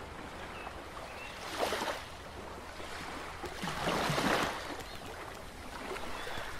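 Sea water sloshing and lapping at a wooden jetty, with two louder swells of splashing, about a second and a half in and about four seconds in.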